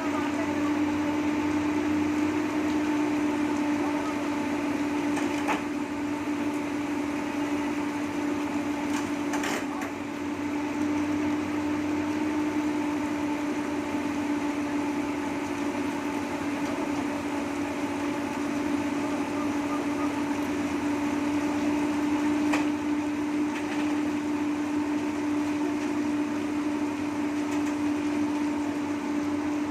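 Excavator engine running steadily with a constant hum, and a few short knocks, about five, nine and twenty-two seconds in.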